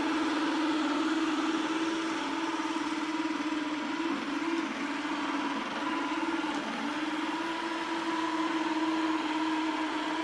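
A machine or engine running with a steady hum that wavers slightly in pitch, over a rushing noise.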